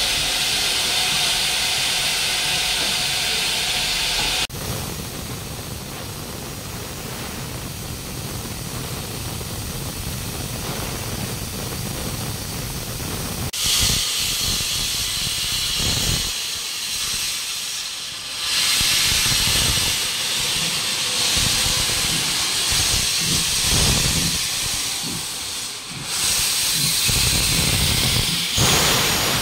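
LNER J27 0-6-0 steam locomotive 65894 letting off steam with a loud, steady hiss. The hiss cuts out suddenly about four seconds in, then returns loudly from about halfway, with an uneven low rumble underneath.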